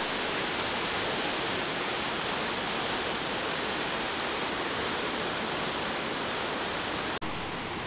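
Whitewater of a mountain river rushing over rocks and through a narrow cascade in a gorge: a steady, loud rush of water. It briefly cuts out and resumes near the end.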